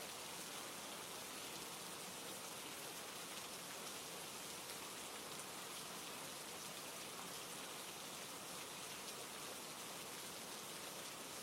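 Steady rain falling on a forest: an even hiss with many fine drop ticks, unchanging throughout.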